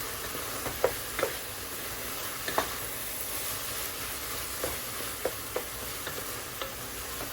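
Ground turkey with onion, garlic and taco seasoning sizzling steadily in a pot while it is stirred, a utensil knocking against the pot a few times.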